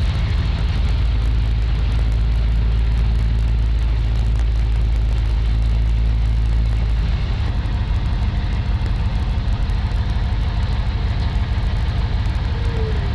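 Military truck driving across open desert: steady engine and road rumble, whose deepest part eases off about seven seconds in.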